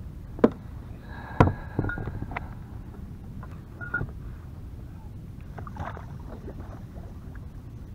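Gear knocking and clattering on a kayak as a coiled anchor rope and its float are handled and the line is paid out over the side: a few sharp knocks in the first two seconds and another about four seconds in, over a low steady rumble.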